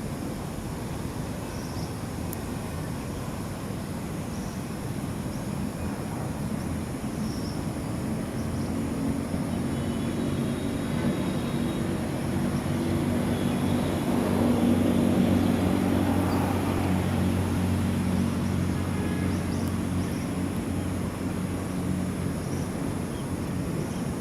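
A distant engine passing by, with a low, steady hum. It slowly grows louder to a peak about two-thirds of the way through, then fades again.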